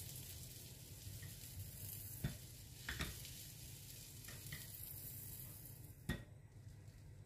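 Faint steady hiss with a few light clicks; the hiss drops away after a sharper click about six seconds in.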